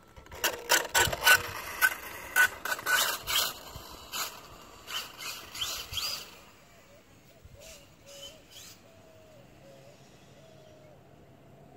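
Electric RC stadium truck (Traxxas Rustler with a Poseidon 2200kV brushless motor) being driven in quick throttle bursts: a rapid run of loud, harsh bursts for about six seconds, with one short rising whine near the end of them. After that it is much quieter.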